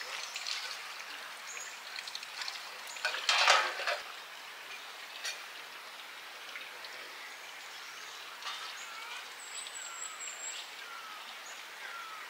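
Hillside outdoor ambience: a steady hiss, with a brief louder rush about three and a half seconds in. From about eight seconds a bird repeats a short falling call roughly once a second.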